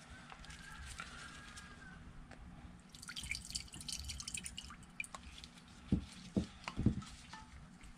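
Alcohol squirted from a syringe through an outboard carburetor's fuel passages, dripping and spattering into a ceramic bowl in a quick run of small ticks about halfway through. There are two dull knocks near the end.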